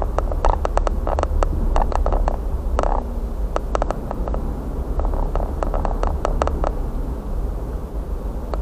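A vehicle driving along a road, recorded from inside the cab: a steady low road and engine rumble, with irregular sharp ticks scattered through the first seven seconds or so.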